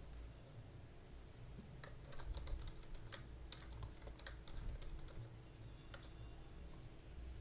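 Computer keyboard typing: a quick run of key clicks lasting a couple of seconds, then a single click about a second and a half later.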